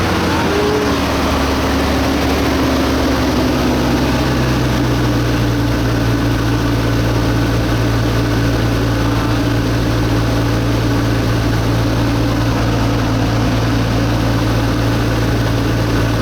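Nissan RB25DET 2.5-litre turbocharged straight-six idling steadily just after a cold start, its idle easing down over the first few seconds before settling. It runs evenly, without an obvious knock.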